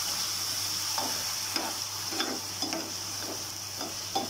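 Diced potatoes sizzling in hot oil in a frying pan, with a spoon scraping and knocking against the pan several times from about a second in as they are stirred.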